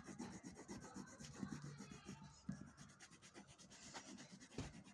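Faint scratchy rubbing of a yellow wax crayon worked back and forth across paper in quick repeated strokes, colouring in an area.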